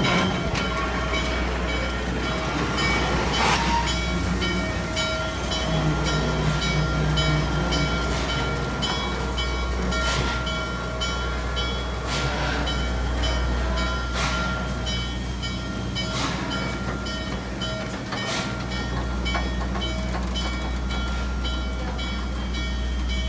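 Norfolk & Western J Class 611 steam locomotive standing at the platform, with a steady low rumble and a faint steady whine, broken by a few short, sharp noises.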